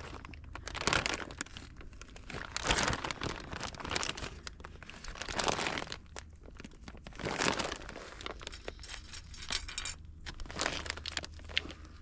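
Crinkling and rustling of packaging, in repeated bursts of about a second each.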